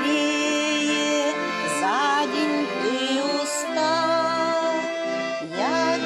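Bayan and accordion playing a slow lullaby together in sustained chords. A singing voice slides up into several long held notes, about two, three and nearly six seconds in.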